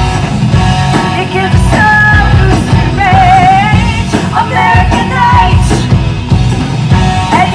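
Rock song with a singer's voice carrying the melody over a full band.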